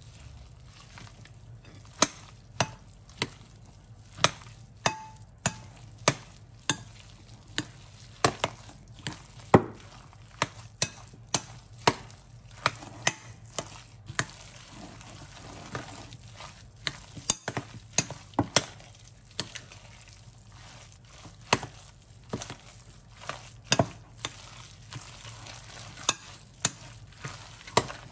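Gloved hands kneading and mixing a moist filling of glass noodles, mushrooms and herbs in a glass bowl: soft wet squishing with irregular sharp clicks, one or two a second.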